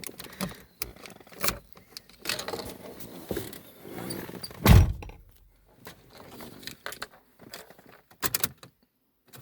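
Car keys jangling and small handling clicks, with one heavy thump about five seconds in. No starter crank is heard: the van's battery is flat.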